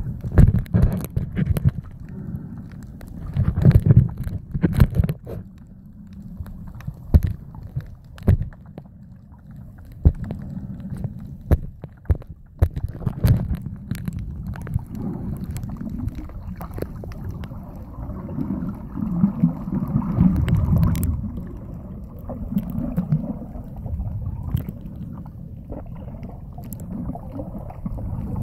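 Muffled underwater water movement around a submerged camera: a low, uneven rumbling and sloshing, broken by many irregular clicks and knocks.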